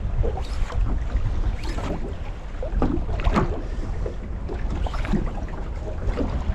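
Wind buffeting the microphone over the sound of open sea around a small boat, a steady low rumble with no engine note. A few short clicks and knocks stand out, about half a second, a second and a half, and three seconds in.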